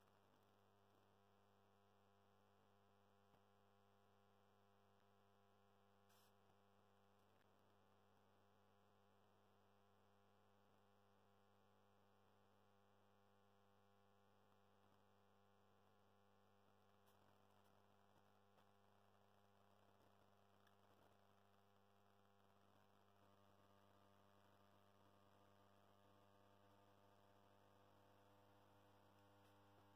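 Faint, steady electrical hum from a high-pressure sodium lamp running on magnetic ballasts, pitched at twice the mains frequency with a stack of overtones. About two-thirds of the way through the hum grows slightly louder and richer, while the lamp is still warming up toward full brightness.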